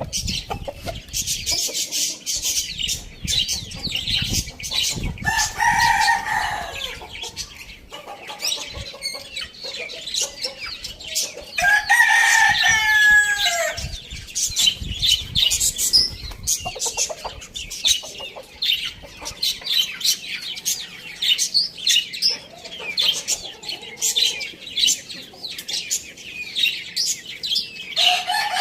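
A rooster crows twice, about five seconds in and again about twelve seconds in, and a third crow begins right at the end. Under the crows runs busy, constant high-pitched chirping from other birds.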